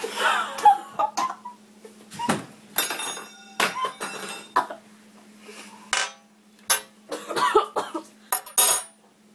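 Several people coughing and spluttering in short, irregular fits, set off by dry ground cinnamon caught in the throat after trying to swallow a spoonful of it.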